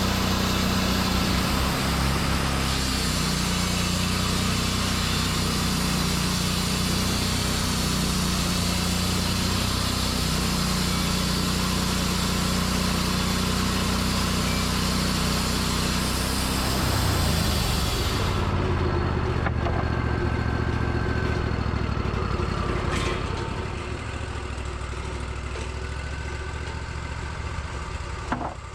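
Engine-driven sawmill cutting a split white pine log, the engine running steadily under the loud hiss of the blade in the wood. About two-thirds of the way through the cutting noise stops and the engine runs on alone, getting quieter a few seconds later.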